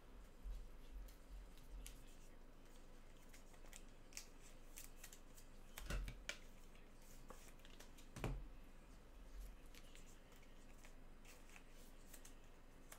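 Faint handling of trading cards and their packaging: scattered soft clicks and rustles, with two louder knocks about six and eight seconds in.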